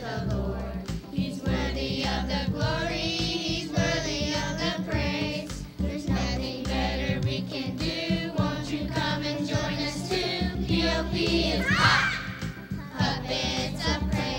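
The show's theme song playing: singing voices over a band backing with a steady beat, with a brief rising glide about twelve seconds in.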